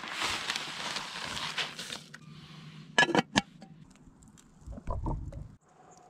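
Camp cooking sounds: a steady rustling pour for about two seconds, then two or three sharp metal clinks from a camp pot's lid and wire handle as it is set on the fire, then a low sip from a metal cup near the end.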